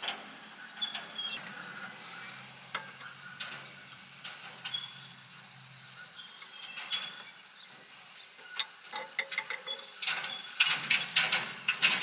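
Small clicks and light metal rattles of a brass drain-valve fitting being threaded by hand onto a water heater's cold-water inlet, with a denser run of clicks and clinks near the end.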